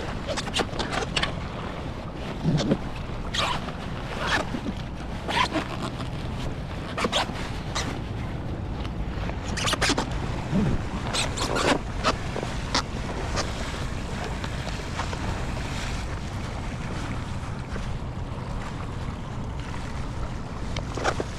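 Kayak paddle blades dipping and splashing in river water, a stroke about every second, thinning out in the second half, over a steady rush of wind on the microphone.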